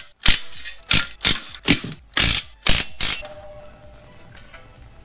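Cordless impact wrench running in short bursts, about seven in three seconds, as it spins out the 12 mm bolts holding the clutch pressure plate, then it stops and faint background music is left.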